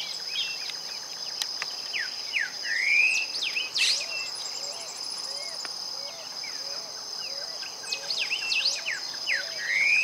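A steady, high-pitched insect drone, with several birds calling over it. There are many short sharp chirps and quick whistled sweeps, and a louder rising slurred call, once about 2.5 s in and again near the end. From the middle on, a soft low note repeats steadily, about one and a half times a second.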